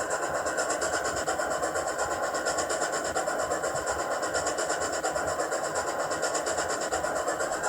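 Hornby Black 5 model steam locomotive running steadily under power, with its sound decoder playing a rapid, even steam-chuff rhythm through the model's small speaker over the running noise of the mechanism.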